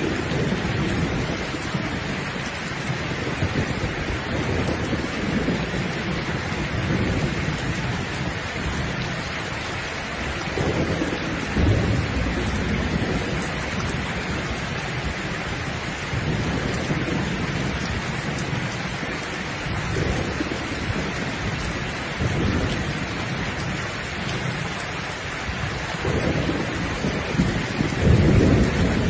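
Steady rain falling, with low rumbles swelling and fading every few seconds, the strongest near the end.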